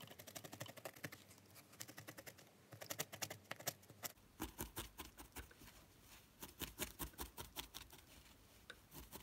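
Single felting needle stabbing repeatedly into wool over a foam felting pad: a faint, quick run of soft clicks, about seven a second.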